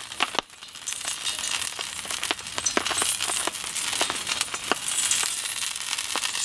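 Small campfire of thin dry sticks crackling, with irregular sharp pops and snaps over a steady hiss.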